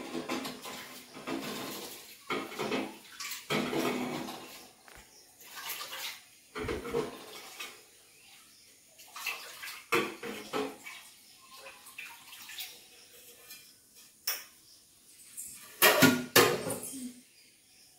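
Water splashing in short bursts from a tap, with dishes and utensils clattering as they are handled and rinsed. The loudest clatter comes about two seconds before the end.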